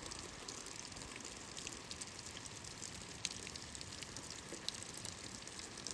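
Light rain falling, a soft even hiss with scattered drops ticking now and then.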